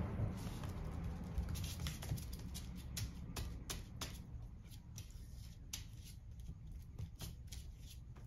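Light, irregular taps and scrapes of a glue brush dipped in a cement pot and worked over leather heel lifts on a glass-topped bench, with a cluster of quick taps a few seconds in.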